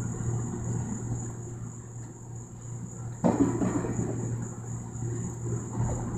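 Insects chirring steadily at a high pitch, over a low steady hum. About three seconds in, a sudden louder noise starts and fades over the next second or so.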